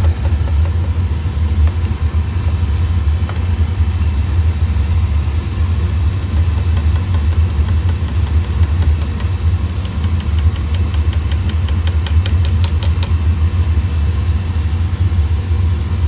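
Oil burner firing steadily, with a loud, even low rumble of flame and blower. It is running normally, with no sign of the intermittent shutdown it is being checked for. A quick run of light ticks comes through about two-thirds of the way in.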